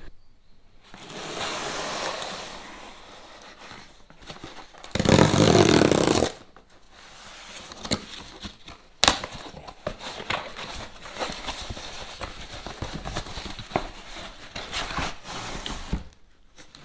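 Handling noise from unpacking a set of ratcheting wrenches: rustling, a loud scraping rush of about a second and a half about five seconds in, then a long run of irregular clicks and knocks.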